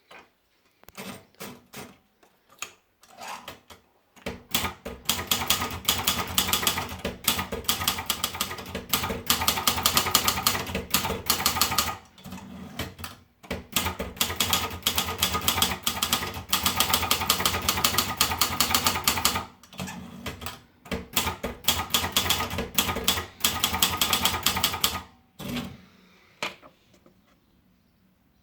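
Sperry Remington typewriter being typed on: a few single key strikes, then long runs of rapid clacking keystrokes separated by short breaks, ending in a few last strikes.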